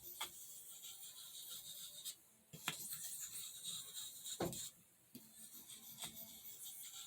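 Steel knife blade drawn lightly across a soft Arkansas whetstone, giving a faint, gritty scraping in runs broken by two short pauses. These are near-zero-pressure alternating strokes, used to work the burr off the edge.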